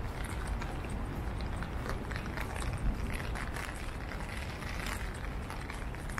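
Wet city street ambience: a steady low traffic rumble with scattered light taps and one louder knock about three seconds in.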